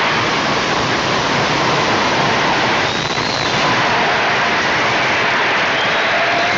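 A large audience applauding steadily, heard on an old archival recording.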